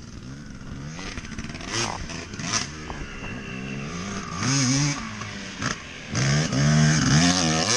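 Motocross dirt bike engines revving up and down as the bikes ride through the turns. The engines are loudest about four and a half seconds in and again from about six seconds in, as a bike passes close.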